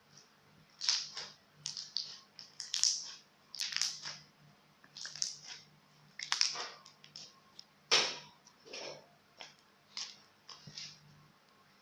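Slime being squeezed and poked by hand, giving irregular wet clicks and crackling pops, about a dozen over the stretch, the loudest about eight seconds in.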